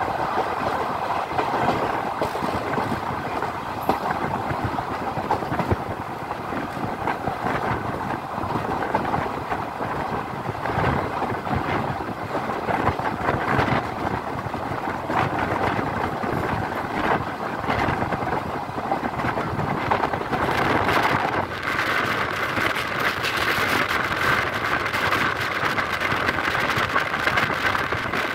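Passenger coach of the Pamani Express running at speed, heard at an open window: a steady rush of wheels on the rails and wind, with frequent clicks from the track. About three quarters of the way through the sound turns brighter and hissier.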